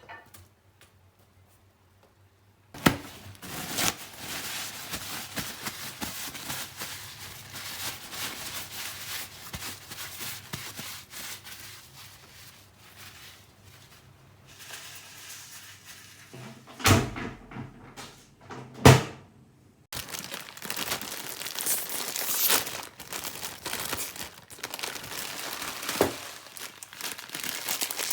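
Tissue paper pulled from its box and rubbed between the hands as they are wiped dry, a long papery rustling. Then a trash bin lid knocks open and drops shut, two sharp thumps about two seconds apart. Then food wrapping crinkles as it is unwrapped.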